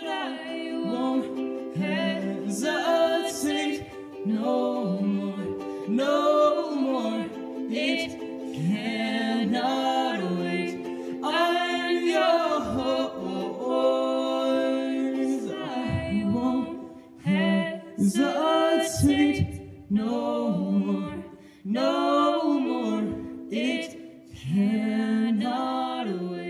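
A duet: a young man and a young woman singing with ukulele accompaniment, the ukulele holding steady chords under the sung melody.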